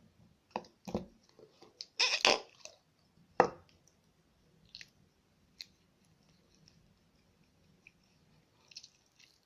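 Slime being handled and pulled apart by hand: scattered sticky squelches and small clicking pops at uneven intervals, the loudest cluster about two seconds in and another sharp one around three and a half seconds in.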